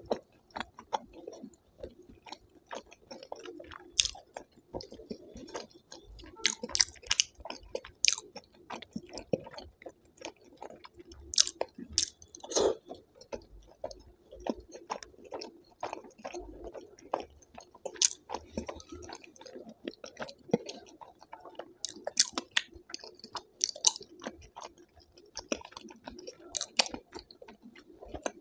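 Close-miked chewing and mouth sounds of a person eating: wet chewing with irregular sharp clicks and smacks every second or so.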